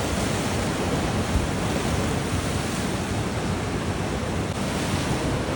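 Ocean surf breaking and washing in as a steady rush, with wind buffeting the microphone.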